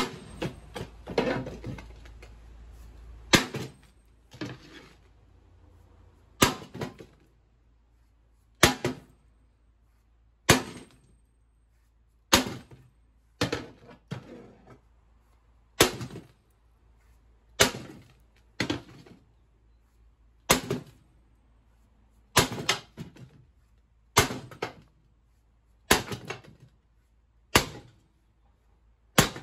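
A small sledgehammer striking a steel key-lock safe (Phoenix SS1180) over and over to force it open: sharp blows about every two seconds, some landing as quick double knocks.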